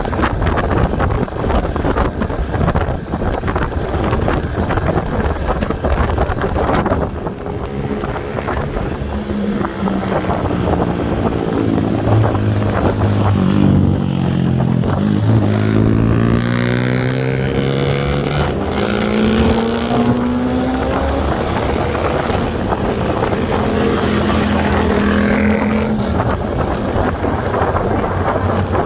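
Wind buffeting the microphone over a motor engine's drone. About a third of the way in the engine's pitch rises and falls and sweeps as if it passes close, and it fades near the end.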